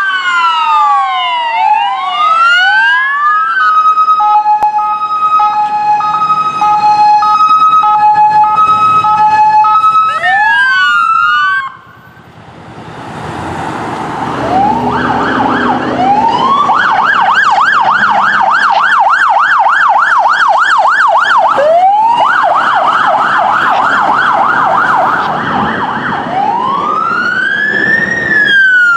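Electronic sirens on Ford Explorer police SUVs running code 3. A wail sweeps up and down, then the hi-lo two-tone alternates between a high and a low note, then the wail returns and cuts off suddenly about twelve seconds in. After that a siren rises again and cycles through a fast yelp warble, then a slow wail near the end.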